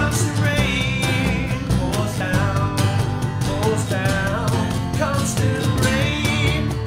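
Instrumental intro of an acoustic pop-rock song: a band playing a melody over a steady beat, with no singing yet.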